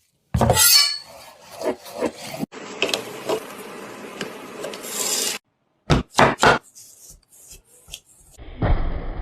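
Rubbing and scraping in several short, edited bursts, with a few sharp knocks about six seconds in.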